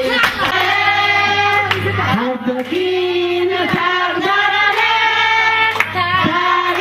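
Women singing buraanbur, Somali women's sung poetry, into microphones, drawing out long held notes with a wavering pitch.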